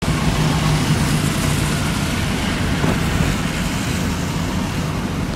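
Renault 18 GTX's 2.0-litre four-cylinder engine running steadily through its stock, unmodified exhaust, with no revving.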